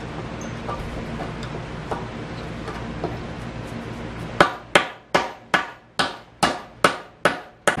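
Steel claw hammer hitting a nail in a reclaimed wooden board: nine sharp, quick blows, about two or three a second. Before the blows there are a few seconds of only faint ticks.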